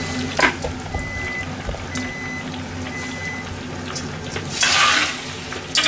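Kitchen sounds: a short rush of running water about four and a half seconds in, with a few light clicks of utensils. A faint high beep repeats about once a second in the first half.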